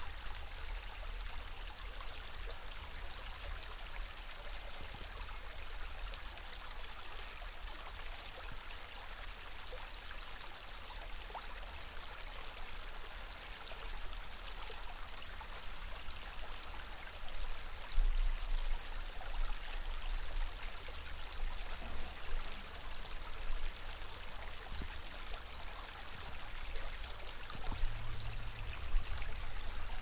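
Shallow creek water running and trickling over rocks, a steady rushing hiss. Low wind rumble buffets the recorder's microphone, with louder gusts in the second half.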